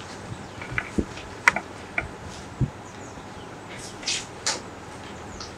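Sheets of paper being handled and shuffled near the microphones: a few short clicks and taps, then a couple of brief rustles about four seconds in.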